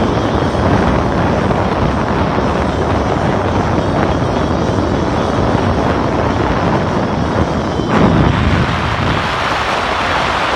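Wind buffeting the microphone: a loud, steady rush heaviest in the low end, shifting about eight seconds in.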